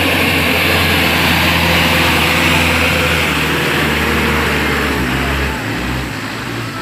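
Medium bus's diesel engine pulling under load up a steep grade as the bus passes close by, then dropping away a little after five seconds in as it moves off up the bend.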